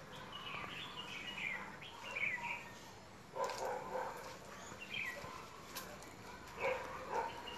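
Small birds chirping in short bursts of calls, several in the first couple of seconds and a few more later. Now and then footsteps crunch through dry leaf litter.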